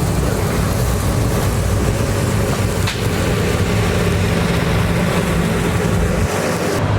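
A steady mechanical hum with a broad rushing noise, like an engine or a fan, and one faint tick about three seconds in.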